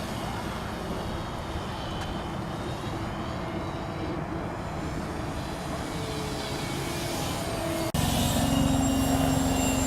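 Radio-controlled model airplane in flight: a steady motor-and-propeller drone under a wash of wind noise. About eight seconds in, the sound cuts abruptly to a louder, closer, steady motor tone.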